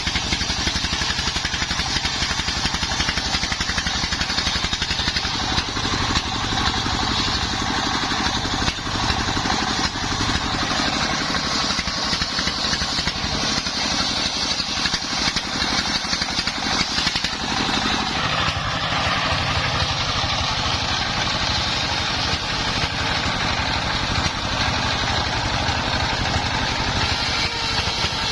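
Engine-driven mobile circular sawmill running steadily as it saws salam timber, a continuous engine hum under a dense whine of the blade. The engine note shifts about two-thirds of the way through as the load changes.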